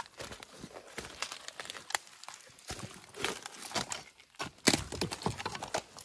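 Rustling and crackling of dry leaves and plant stems, with irregular sharp snaps; the loudest snap comes about three-quarters of the way through.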